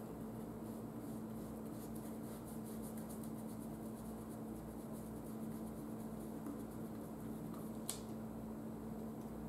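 Faint ticking and scratching of a thin paintbrush dabbing on a canvas board over a steady low hum, with one sharp click near the end.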